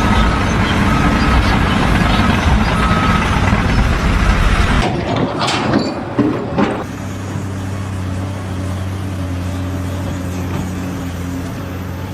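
Heavy vehicle or machine engine noise. Short repeated beeps at one pitch sound over it for the first few seconds. A sudden change comes about five seconds in, with a few knocks, and then a steady low engine hum.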